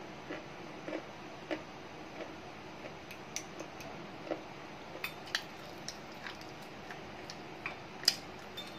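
Slate pencil being chewed: irregular, crisp crunching crackles, the loudest about eight seconds in, over a faint steady hiss.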